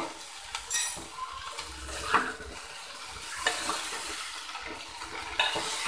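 A metal spoon stirring cauliflower florets through masala in a metal pan: irregular scrapes, knocks and a ringing clink against the pan, over a faint sizzle of the frying masala.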